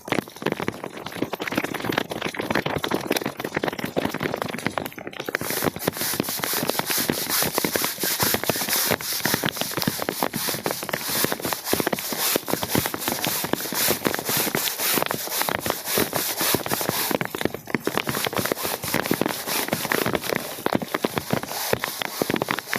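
Dense crackling patter of rain falling on a wet carpet, mixed with the scrape of a tool across the rug.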